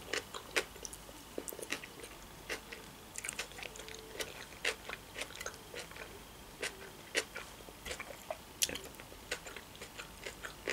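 A person chewing mouthfuls of crab-stick salad, with scattered soft clicks from the mouth and the fork scooping on the plate.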